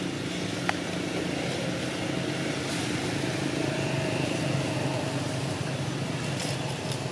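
A motor vehicle's engine running steadily, with one sharp click about a second in.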